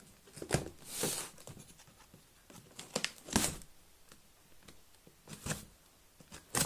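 Small blade cutting and scraping through packing tape on a cardboard parcel, in several short scratchy strokes, with a heavier knock about three and a half seconds in as the box is turned on the wooden floor.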